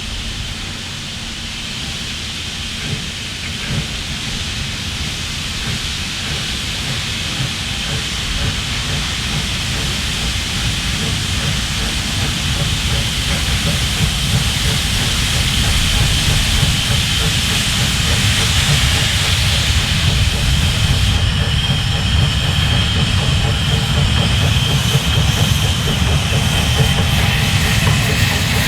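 Steam train running, a steady hiss and rumble of steam and rail noise that grows steadily louder.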